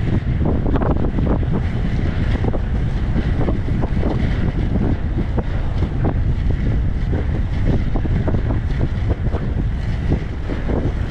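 Wind buffeting the microphone of a camera moving at skating speed: a loud, constant rumble broken by frequent short crackles.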